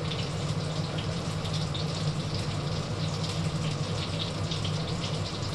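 Chicken frying in hot oil, a steady crackling sizzle, over the steady low hum of a kitchen range hood fan.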